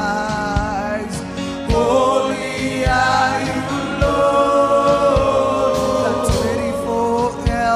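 Gospel worship music: voices singing long, held notes over a steady beat.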